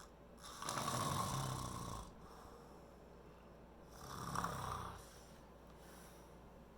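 A person passed out asleep and snoring: two long snores about three seconds apart, the first longer than the second.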